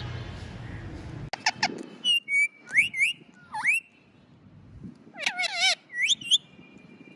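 Pet parrot whistling and squawking: a run of short calls and whistles that sweep up and down in pitch, lasting about five seconds. Before it, a low rushing noise cuts off about a second in.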